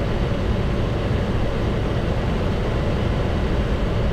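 Steady flight-deck noise of a Boeing 737-800 on final approach to landing: an even rush of airflow and engine rumble.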